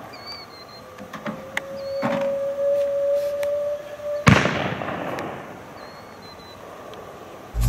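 60mm mortar training round (TRUMP) whistling in flight, a steady tone rising slightly in pitch for about three seconds. It ends in a sharp crack about four seconds in that dies away over a second, typical of the round striking downrange. Faint bird chirps; music starts right at the end.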